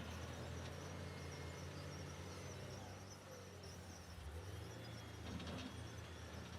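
Diesel engines of heavy earthmoving machinery (dump trucks and bulldozers) running with a low, steady drone that eases off slightly midway and picks up again.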